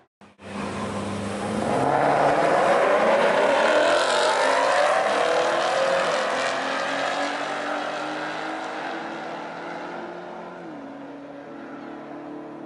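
Ford Mustang GT's 5.0 Coyote V8 at full throttle on a drag-strip launch, its pitch climbing as it accelerates hard, loudest a few seconds in and then fading as it pulls away. A steady idling engine hum is left near the end.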